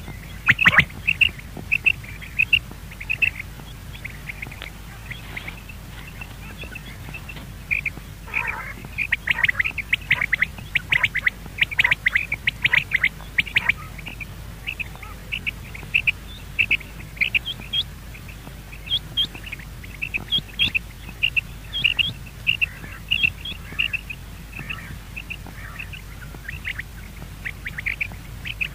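Game bird calling over and over in short, high chirping notes, with a quick flurry of calls about a third of the way in and then evenly spaced calls.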